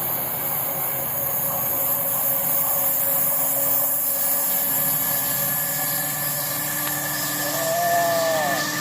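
Class 70 diesel-electric freight locomotive running with a steady, loud engine and rail noise as it goes by. A brief pitched tone rises and falls near the end.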